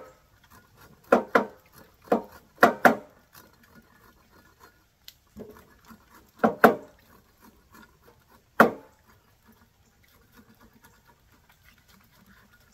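Kitchen knife striking and slicing down a fresh sweet bamboo shoot (Phyllostachys vivax) on a wooden cutting board as its tough skin is cut away: about eight sharp knocks in short clusters of two or three, the last one about eight and a half seconds in.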